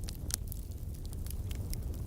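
Wood fire crackling in a fireplace: scattered sharp snaps and pops, one louder pop about a third of a second in, over a low steady rumble.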